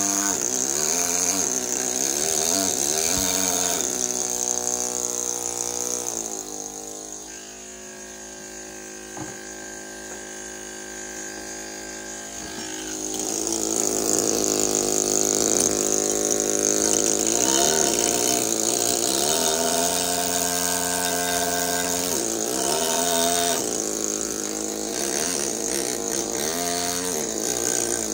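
Pneumatic carving hammer driving a steel chisel into marble: a rapid buzzing chatter whose pitch wavers as the tool is worked. It eases to a quieter steady hum for several seconds about a quarter of the way in, then picks up again.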